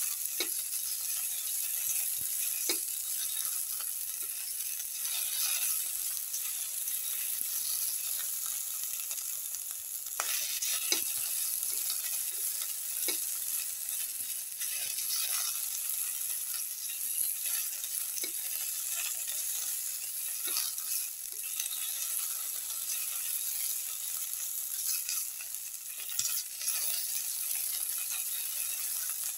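Oil sizzling steadily in a metal pan as garlic, green chilies and tomato pieces fry, with a spatula scraping and tapping against the pan now and then as they are stirred.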